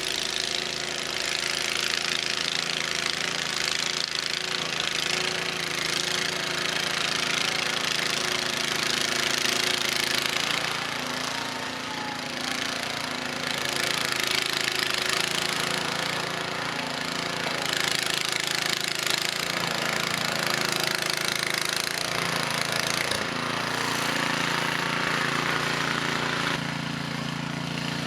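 Cub Cadet 2X 524 SWE two-stage snowblower running under load in heavy wet snow, its engine steady beneath a rushing hiss of snow being thrown that swells and fades every few seconds. The engine note shifts a few times as the load changes.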